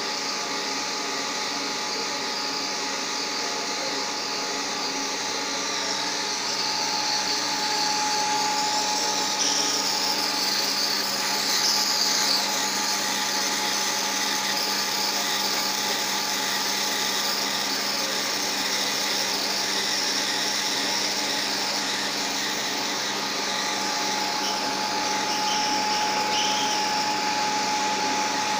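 Paper slitter-rewinder running steadily, its motor and rollers giving a continuous whirring hum. A higher whine stands out about seven seconds in and again in the last few seconds.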